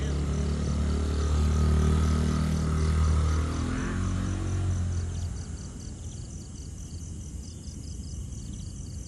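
A motorcycle engine running, loudest about two seconds in and dropping away after about five seconds. Crickets chirp steadily throughout, clearer once the engine fades.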